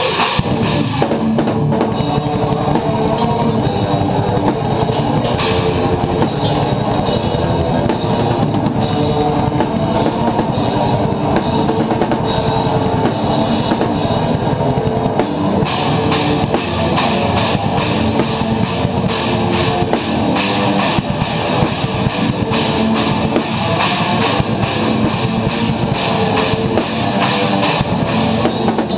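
Rock drum kit played hard along with a progressive metal song, the kit prominent in a loud, dense mix. About halfway through, the cymbal work changes to a fast, even run of strikes.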